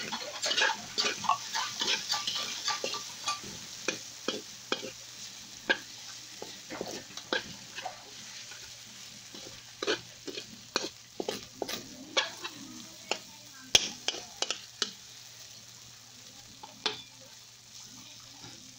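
Metal fork scraping and tapping irregularly against a large aluminium pan while stirring food frying in it, with a sizzle that is strongest in the first few seconds and then fades.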